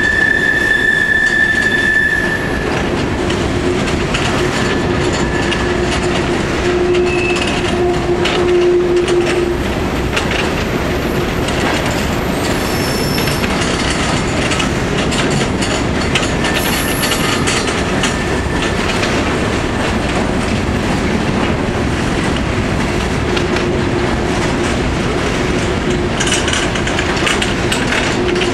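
Empty coal hopper cars of a freight train rolling past on a curve: a steady rumble and clatter of wheels on rail, with brief squeals from the wheels about the start and at times later on.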